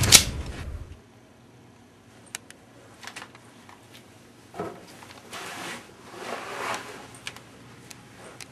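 A loud gunshot bang dying away within the first second. Then faint shuffling: a soft knock and two brief rustles, with a few small clicks.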